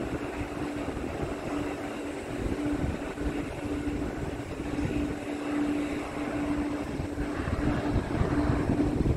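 Aircraft engine running with a steady hum, its noise growing a little fuller in the second half.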